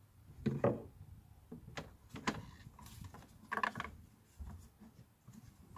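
Knocks and scraping of the VW T5.1's plastic air filter box lid as it is lowered and worked back onto the housing, with a few clatters, the loudest about half a second in.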